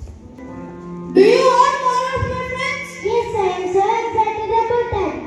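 Children's voices singing, coming in loudly about a second in with long held notes, over fainter held musical tones.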